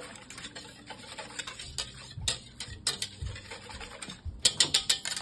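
Scattered sharp clicks and taps from handling a digital kitchen scale while it is zeroed, with a quick run of louder clicks near the end.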